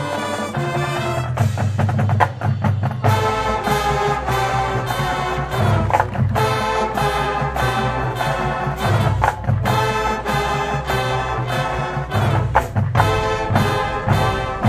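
High school marching band playing: brass chords over drums and percussion, with a deep bass part coming in about three seconds in.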